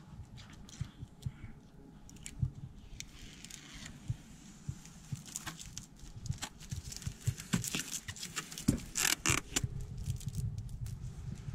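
Clear plastic protective film being peeled off a car's door sill plate and crinkled in the hand: scattered crackles and clicks, growing denser and louder in the second half.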